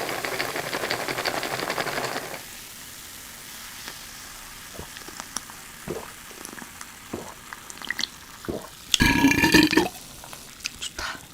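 Food sizzling in a hot pan for about two seconds, then quieter scattered clicks and taps. Near the end comes a loud belch lasting about a second, the loudest sound of the stretch.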